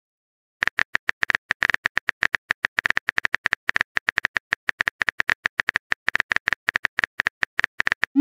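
Simulated phone keyboard typing sound effect: a rapid, irregular run of short clicks, about eight a second, that starts about half a second in and stops just before the end, marking a message being typed.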